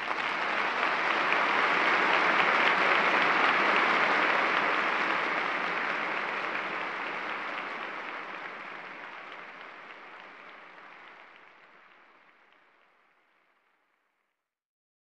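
Audience applause, dense and even, fading out slowly over about twelve seconds.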